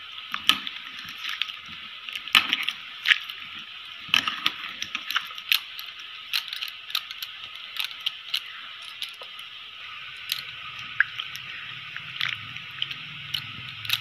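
Bangles clinking and rattling irregularly as a hand mixes a milky fruit drink in a steel bowl, with faint squishing of the liquid and soft fruit.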